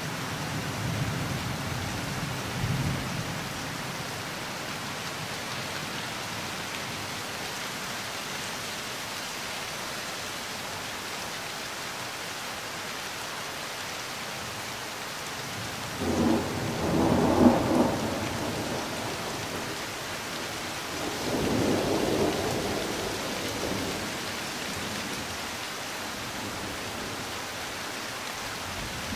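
Thunderstorm: steady rain with thunder. A low rumble in the first few seconds, then two louder peals of thunder just past the middle and a few seconds later, the first one the loudest.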